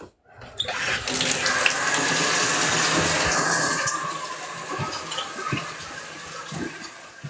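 Water running, as from a tap. It starts just after the opening, is loudest for the first few seconds, then runs on more softly.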